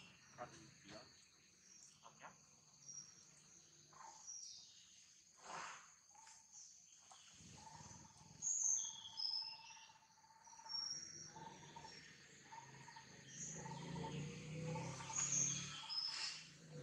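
Faint forest ambience of birds chirping in short high notes and insects calling, with a steady tone about halfway through that turns into a pulsing call. A low rumble swells near the end.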